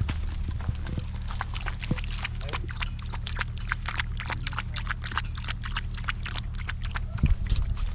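Street dogs eating boiled rice and chicken from bowls: a quick, uneven run of wet chewing and lapping clicks, over a steady low hum.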